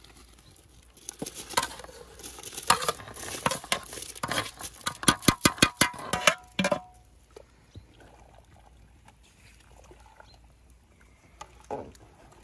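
Washed rice sliding and pattering out of a metal colander into a pot of boiling water while a slotted metal skimmer scrapes it out, ending in a quick run of sharp metal-on-metal knocks with a brief ring as the skimmer taps the colander clean. After that only a faint simmer, with a single knock near the end.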